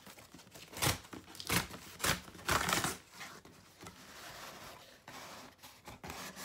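Cardboard shipping box being torn open along its perforated tear strip: several short ripping sounds in the first three seconds, then quieter cardboard scraping and rustling as the top flap is lifted.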